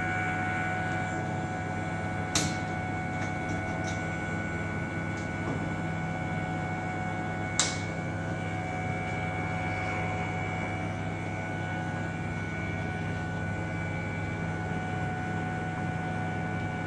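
Steady hum of running laboratory equipment with a few constant tones. Two sharp clicks, about two and a half and seven and a half seconds in, come from the glassware and temperature probe being handled on the instrument.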